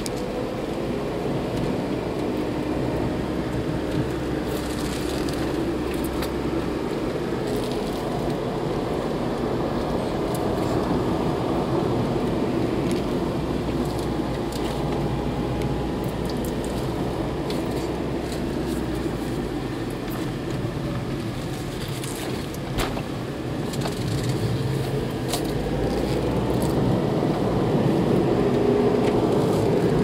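Car engine and tyre-road noise heard from inside the cabin while driving, the engine note rising near the end, with an occasional light click.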